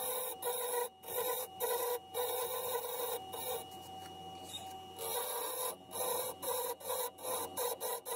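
Wood lathe turning a segmented bubinga and English ash goblet blank while a flat turning chisel cuts it in a run of short passes, each a scraping cut with brief gaps between, easing off for about a second around the middle. A thin steady whine from the lathe runs underneath.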